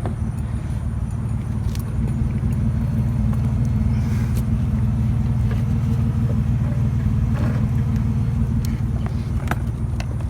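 Steady low rumble of a running vehicle, growing slightly louder about two seconds in, with a few faint clicks and knocks over it.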